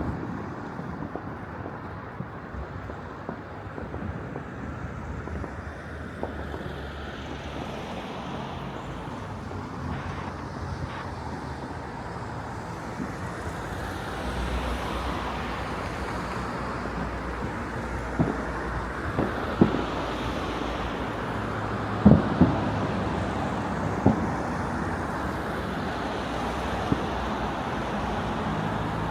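Distant fireworks going off across a city: scattered single bangs and pops, several close together in the second half, over a steady wash of city and wind noise.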